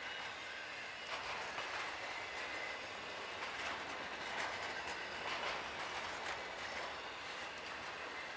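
Freight train of enclosed autorack cars rolling past, its steel wheels making a steady rolling noise with irregular clacks over the rail joints.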